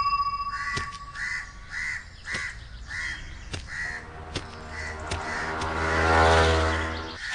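Crows cawing repeatedly in short calls, then a passing motorcycle whose engine swells to its loudest about six seconds in and cuts off just before the end.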